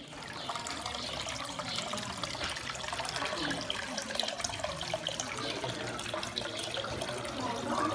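Water trickling and splashing steadily into a stone fountain trough.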